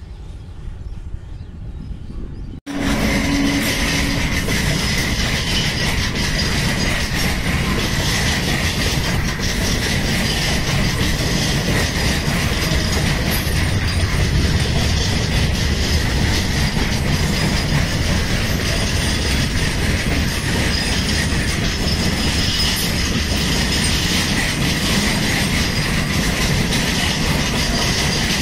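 Long freight train of flat wagons loaded with steel coils rolling past close by: a loud, steady rumble and clatter of steel wheels on rail, with a thin, steady high squeal from the wheels. It cuts in abruptly about three seconds in, after a quieter low rumble.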